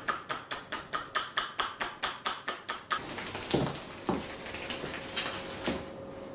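Rapid, even hand slaps on the body in a percussion massage, about five a second. They give way about three seconds in to a few duller thuds over softer rubbing.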